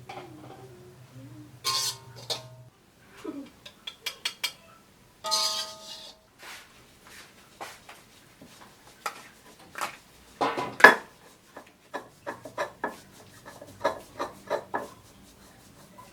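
Kitchen dishes and metal utensils clinking and knocking, with two ringing clinks early on and a run of quicker taps and knocks in the second half, the loudest about eleven seconds in.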